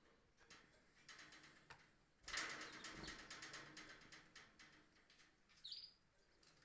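Canaries fluttering and moving about in their cage: soft quick wingbeats and taps, loudest a little over two seconds in, with one short high chirp near the end.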